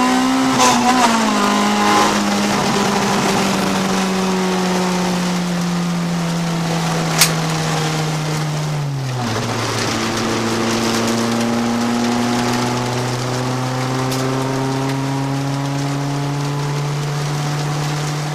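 Honda CRX's B20 VTEC four-cylinder engine heard from inside the cabin at light throttle: its note sags slowly, drops sharply to a lower pitch about halfway through, then climbs gently again. A single sharp click about seven seconds in.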